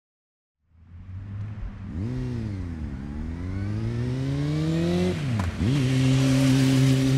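A vehicle engine fades in about a second in, revs up and falls back, then climbs steadily in pitch as it accelerates. Around five seconds in the pitch drops sharply and recovers, like a gear change, and the engine settles into a steady, higher run with rushing wind or road noise.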